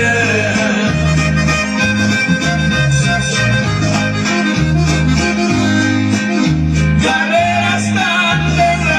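Corrido music: string and reed melody lines over guitar and a bouncing bass that alternates between two notes about every second.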